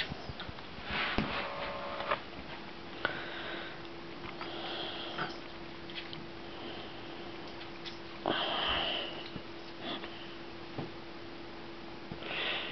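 Sniffing: several short, breathy sniffs a few seconds apart, with scattered light clicks between them.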